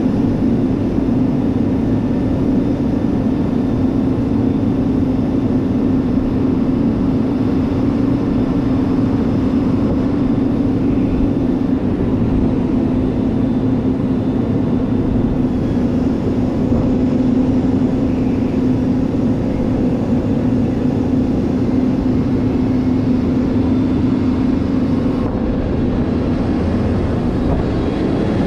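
Heavy diesel engine running steadily at an even pitch, a constant low drone.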